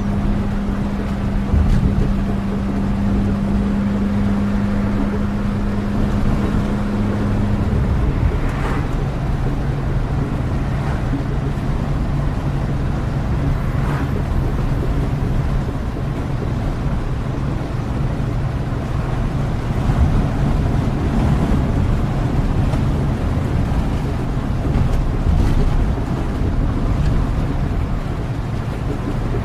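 Steady low rumble of a moving vehicle with rain noise over it; an engine or drive hum drops in pitch about eight seconds in, as with a gear or speed change.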